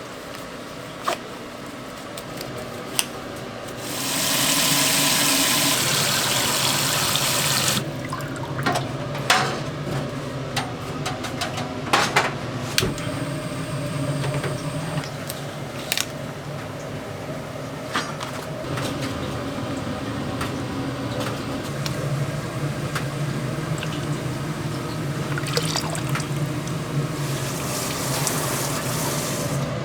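Water running hard from a tap for about four seconds, then the clinks and knocks of kitchen utensils and dishes over a steady low hum, with water running again near the end.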